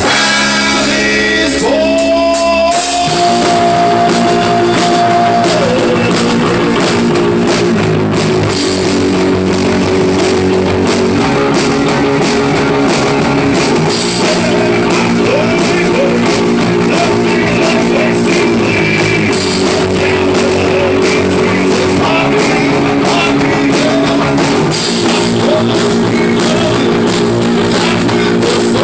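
A live rock band playing loudly in a small room: electric guitar, electric bass and a drum kit with cymbals, with a singer's vocals.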